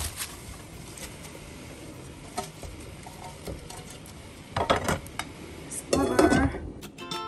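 Metal kitchenware clattering: a metal colander and pot knock as chopped cabbage is tipped into the pot, then a metal pot lid clatters on about six seconds in, the loudest moment. Scattered light knocks come before.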